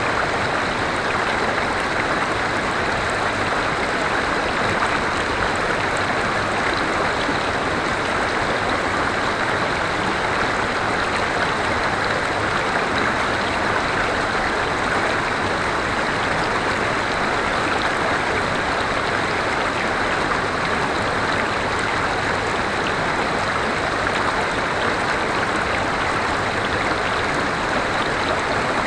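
River water flowing steadily over rocks, an even rushing babble.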